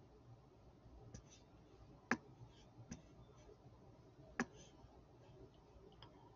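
Four light, sharp clicks from working at a computer, spaced about a second apart and irregular, the sharpest about two seconds in and just after four seconds, over near-silent room tone.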